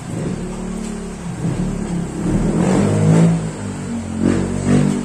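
A motor vehicle engine revving, its pitch rising and falling, louder about three seconds in and again near the end.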